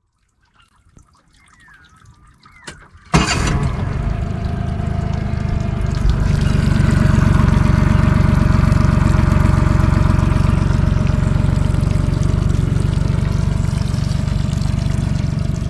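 A steady stream of liquid pouring and trickling into water, starting suddenly about three seconds in and running on loudly.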